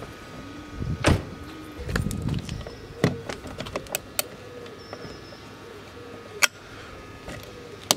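Plastic mirror housing cover being pressed onto a Mercedes W211 wing mirror: a series of sharp plastic clicks and knocks, the loudest about a second in, around three seconds and past six seconds, with a last click near the end as it clips into place.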